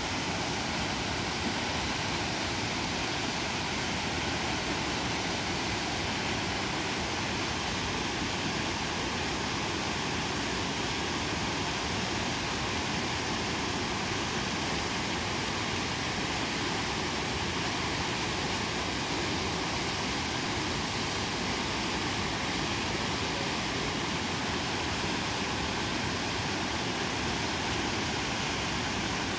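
Steady, unbroken rushing of whitewater rapids in a river.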